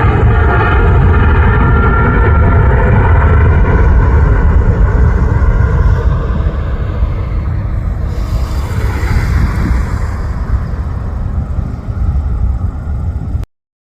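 Boeing 777-300ER's GE90 turbofan engines at takeoff thrust: a deep rumble with high fan tones over it. The fan tones fade by about halfway through and the rumble eases slightly as the airliner draws away, then the sound cuts off abruptly near the end.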